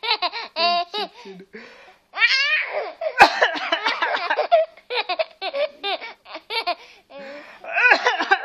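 Small child laughing in fits of short, quick laughs, several a second, with a high rising squeal about two seconds in.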